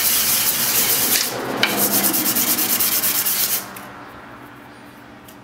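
A small metal part being lapped on black sandpaper: rapid back-and-forth rubbing strokes, a loud scratchy hiss, grinding the face flat and smooth for good contact with a heat sink. The rubbing stops about three and a half seconds in, leaving faint handling noise.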